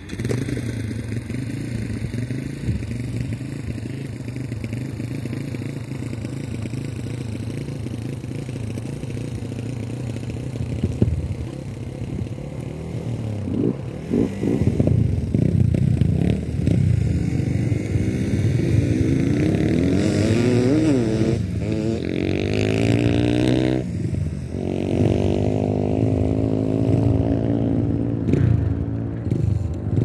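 Motorcycle engines running, getting louder about halfway through, with the revs rising and falling.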